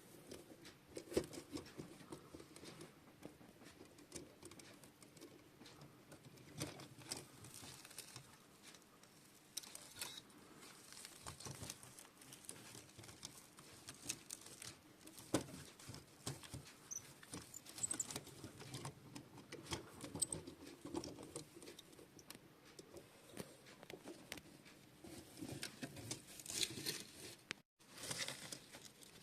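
Faint, irregular light clicks and scrapes of small plastic and die-cast toy farm models being handled and moved on a surface.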